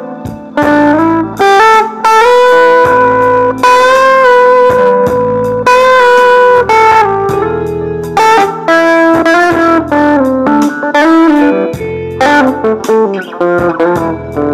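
DIY-kit electric guitar playing a slow blues: single-note lines with held notes and upward string bends, broken by short pauses between phrases.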